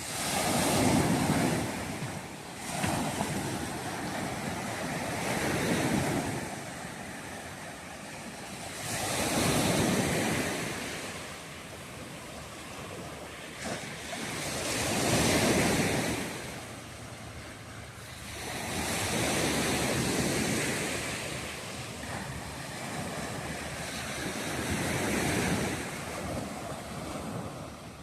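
Sea surf breaking on a beach, each wave swelling into a loud wash and fading again, about every four to six seconds.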